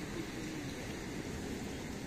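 Fishing boat at sea: a steady low rumble with an even hiss over it.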